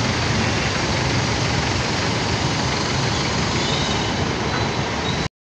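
Steady road traffic noise of a busy city highway, vehicles running past with no single one standing out; it cuts off abruptly near the end.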